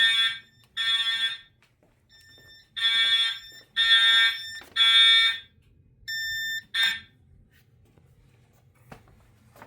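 Fire alarm horns sounding the temporal-3 evacuation pattern: two groups of three half-second blasts with a pause between. A shorter, quieter tone and one brief blast follow, then the alarm stops about 7 seconds in.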